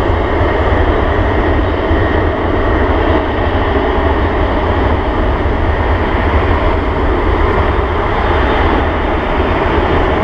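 Jet engines of a Boeing 747-400 freighter running as it moves on the ground: a steady, even rumble with a hiss above it.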